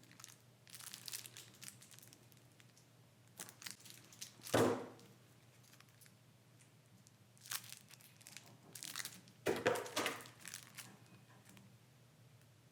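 Plastic wrapping crinkling and tearing in several short bursts as packaged game pieces are handled, with a sharper knock about four and a half seconds in.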